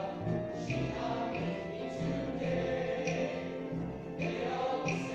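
A high school men's chorus singing together, holding sustained chords with a steady pulse of consonant accents.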